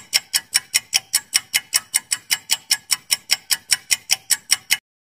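Clock-ticking sound effect of a quiz countdown timer: fast, even ticks, about five a second, that stop abruptly near the end.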